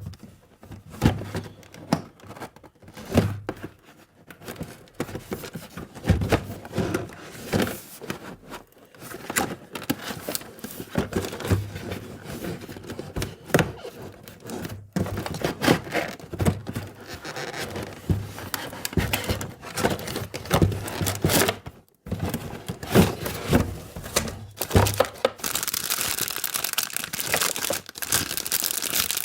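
Plastic packaging crinkling and tearing, with small plastic toy parts clicking and knocking, as a miniature toy kitchen set is unboxed. Near the end, a longer, steadier stretch of rustling.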